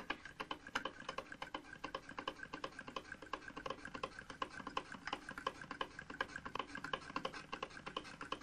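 Willcox & Gibbs chain-stitch sewing machine running, its mechanism making a fast, even clicking of about five clicks a second.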